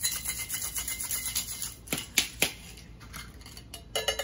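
Crushed ice rattling fast in a stainless steel two-tin cocktail shaker as it is shaken hard. The rattle stops after about two seconds and is followed by three sharp metallic knocks. Near the end there is a clink as the two tins are pulled apart.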